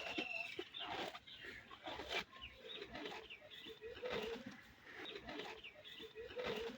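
Buffalo grazing: a series of crisp tearing and crunching sounds, about one a second, as it rips fresh grass and chews.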